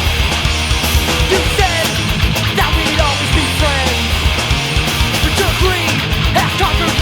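Loud punk rock music from a band recording, dense and unbroken, with gliding pitched lines of a lead part over a steady bass.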